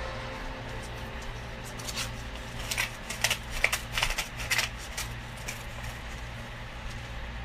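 A quick run of sharp clicks and rustles, like small objects or paper being handled, for about three seconds in the middle, over a steady low electrical hum.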